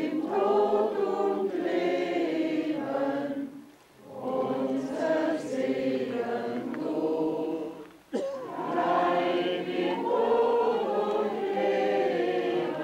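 A small group of older men and women singing a hymn together without accompaniment, in long phrases with breath pauses about four and eight seconds in. A brief knock sounds just after the second pause.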